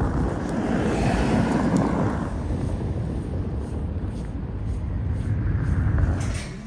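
Cars driving by on a snow-covered street: a steady rumble of engines and tyres, louder at first and again shortly before it cuts off abruptly near the end.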